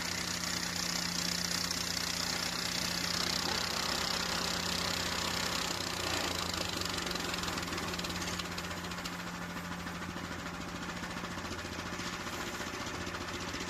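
Harbor Freight sawmill's gasoline engine running steadily at idle, a little quieter from about eight seconds in.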